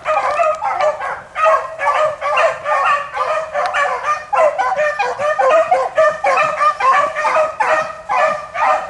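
Beagles baying as they run a rabbit. Their calls come two or three a second and overlap, with no let-up.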